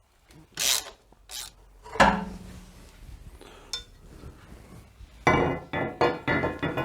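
Metal tools and crash-bar hardware clanking. Brief scrapes come first, then a sharp metallic knock about two seconds in that rings for a moment, and a quick run of metallic clinks near the end.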